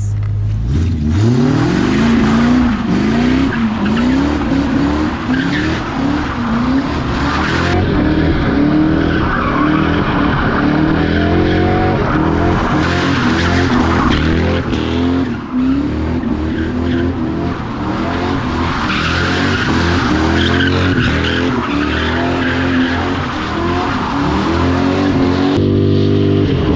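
Car engine revving hard over and over, its pitch climbing and dropping again and again, with tires squealing as the car drifts and spins its wheels.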